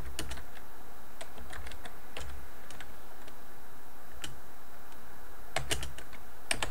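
Typing on a computer keyboard: separate keystrokes with pauses between them, and a quicker run of keys near the end.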